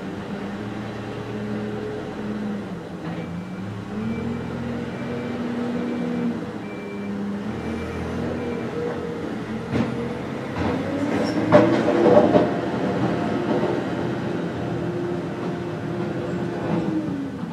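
Excavator's diesel engine working, its pitch rising and falling with the load. About ten to twelve seconds in come a run of clanks and scraping, the loudest part.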